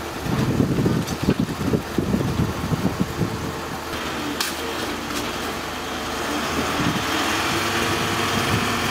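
Diesel engine of a truck-mounted crane running steadily at idle, with uneven low buffeting over the first three seconds. A single sharp knock about four seconds in.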